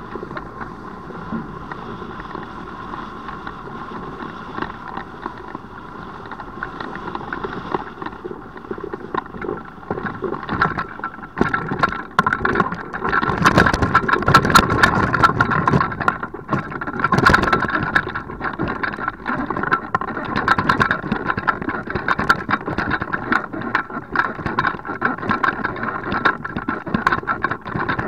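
Rushing air and wind noise over a hang glider on final approach. It grows louder and rougher about a third of the way in, with a run of clicks and rattles as the glider flares and touches down on a dirt field, then settles to a lower rattle as it stands on the ground.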